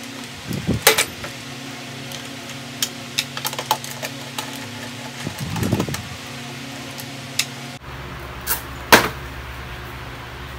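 Hand screwdriver working screws out of a scooter's plastic rear body panels: scattered sharp clicks and knocks of the tool and plastic parts, with a couple of short low creaks, over the steady hum of an electric stand fan.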